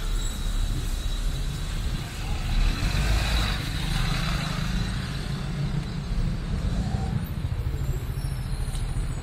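City bus engine running close by at the stop, a low rumble that falls away about seven seconds in as the bus leaves. A brief hiss comes about three seconds in.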